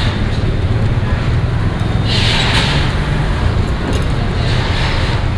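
Road traffic noise: a steady engine rumble, with two hissing swells of passing vehicles, about two seconds in and near the end.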